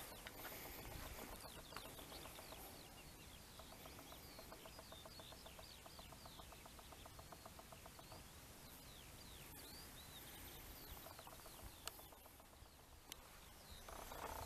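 Faint small birds singing: many quick, short chirping notes, with a rapid, even trill running for a few seconds in the middle.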